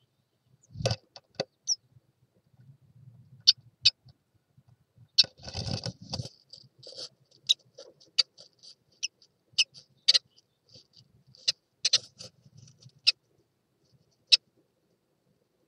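Adult blue tit moving about in a wooden nest box with its newly hatched chicks: a thump about a second in, a burst of scrabbling and rustling in the moss nest material around the middle, and a scattered series of short, sharp high-pitched ticks and peeps.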